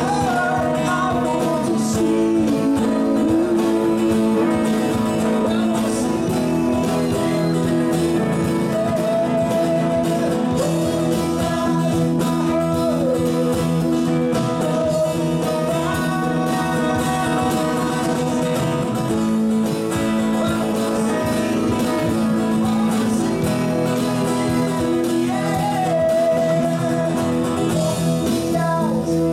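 A small live band playing a song with acoustic guitar, electric guitar, electric bass and drum kit, steady and unbroken.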